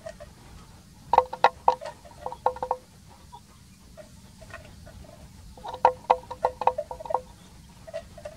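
Wooden neck bells on water buffalo clonking irregularly as the animals graze and move, in two flurries about a second in and again near six seconds, with softer clonks between.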